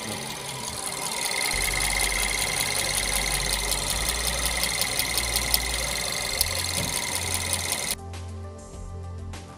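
VW Polo GT TSI petrol engine running with a fast, even mechanical ticking, under background music. About eight seconds in the engine sound cuts off and only the music continues.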